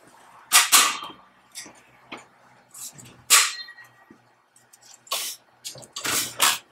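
Metal electrostatic precipitator collection cells and a mesh filter being handled and slid into a cabinet's metal rails. Short scrapes and clatters come every second or so, spread through the whole stretch.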